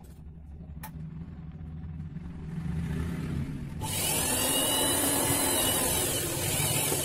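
Electric sewing machine running as a seam is stitched, its motor whirring steadily and getting louder through the middle as it speeds up, with a single click a little under a second in.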